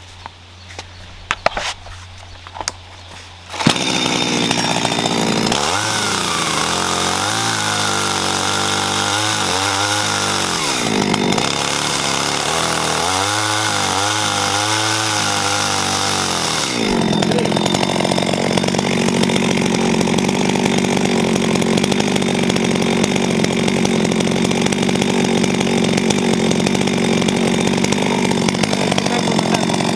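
Gasoline chainsaw, coming in suddenly about four seconds in, its engine speed rising and falling repeatedly, then running steadily from about halfway through.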